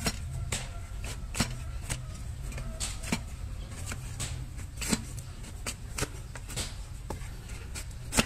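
Long-handled flat hoof-trimming blade chopping into horse hoof horn on a wooden stand, giving sharp knocks at an irregular pace of roughly one every half second to a second.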